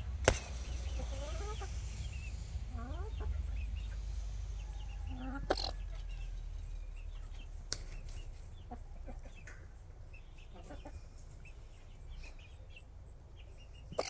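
Chickens clucking softly and intermittently, with a few short, sharp taps, the loudest about a quarter second in.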